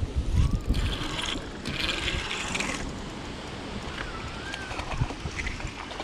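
Spinning reel being cranked in two spells over the first three seconds, retrieving line with a crappie hooked on, over a low rumble of wind on the microphone.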